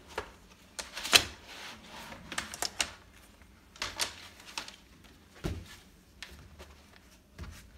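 Plastic panels of a stackable cube organiser, edged in metal wire frames, clattering and tapping against each other as they are handled and lifted off a stack: a string of sharp clicks and knocks, the loudest about a second in.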